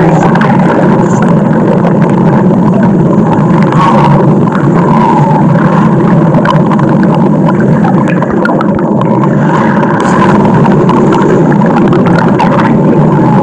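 Loud stomach growl sound effect: a continuous low rumbling growl that holds steady without a break.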